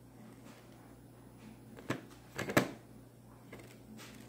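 A bowl knocking against a plastic high-chair tray as a baby handles it: one light knock about two seconds in, then a quick cluster of two or three sharper knocks half a second later.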